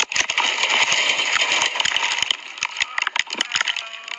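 Cockpit-camera audio of a light aircraft crashing: a loud rushing noise full of sharp cracks and rattles, which thins out a little over halfway through.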